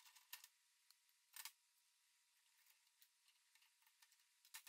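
Near silence with a few faint, sharp clicks of hand tools on the U-joint press; the clearest comes about a second and a half in.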